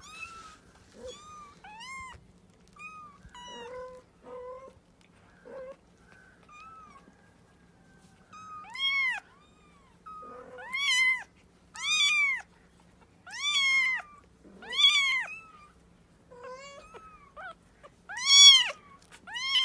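Young kittens mewing over and over in short, high, arching cries. They are faint and scattered at first, then louder and about one a second from roughly halfway on.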